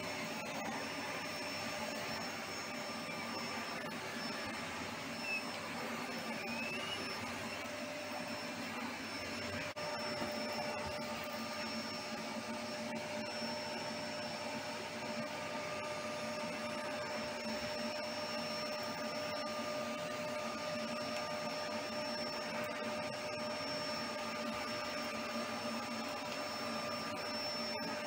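Household vacuum cleaner running steadily, a constant whooshing hum with a steady high whine over it.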